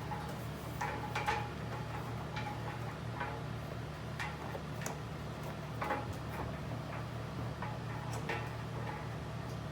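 Scattered light clicks and taps at uneven intervals as the dryer's belt and drum parts are handled during belt installation, over a steady low hum.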